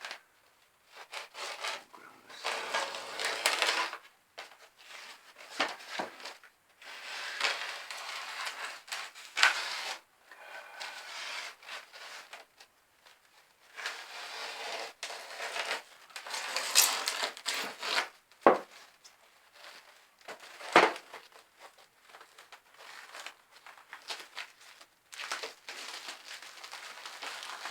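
Cardboard box and packing being handled: scraping, rubbing and crinkling in irregular bursts, with a couple of sharp knocks.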